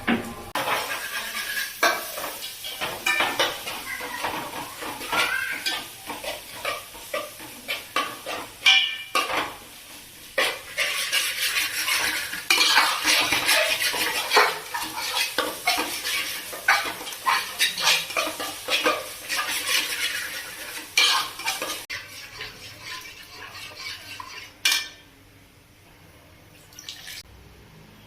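Metal spoon or ladle clinking, knocking and scraping against steel pots and dishes, in many quick irregular strikes, easing off near the end.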